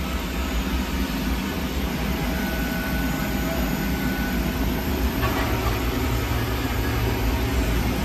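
Steady jet-turbine noise on an airport ramp: a low rumble under a wide hiss, with a deeper hum growing stronger about five seconds in.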